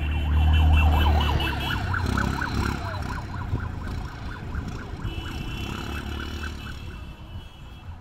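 An electronic siren warbling rapidly, with strings of higher beeps over the warble, slowly fading. A vehicle engine rumbles low underneath in the first second or so.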